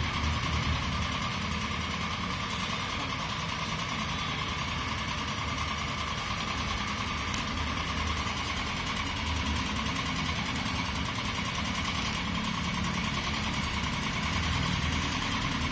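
Steady mechanical rumble and hum, with a few faint clicks.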